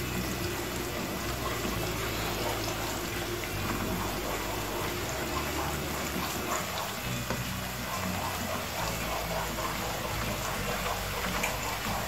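Chopped onion sizzling in hot vegetable oil in a frying pan, a steady crackling hiss, while a wooden spoon stirs it around.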